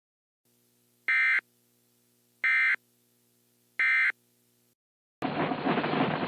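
Emergency Alert System end-of-message data tones: three short, identical bursts of shrill digital warbling about a second and a half apart, signalling that the alert is over. About five seconds in, a loud, steady rushing noise starts.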